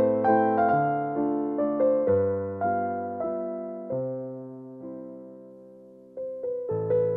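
Background piano music: a gentle melody of struck notes that die away into a brief lull about six seconds in, then a new phrase starts.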